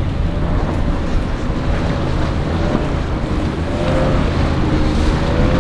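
Motorboat engine running with a slightly wavering pitch, over the wash of waves and wind buffeting the microphone.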